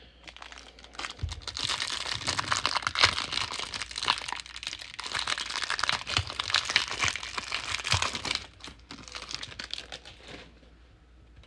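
A trading-card hanger pack's wrapper being crinkled and torn open by hand. The dense crackling starts about a second in and is loudest through the middle, then tapers to faint rustles as the cards come out.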